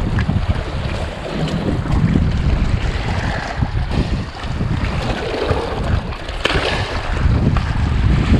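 Wind buffeting the microphone in a heavy, fluctuating rumble, over small waves washing and splashing against shore rocks.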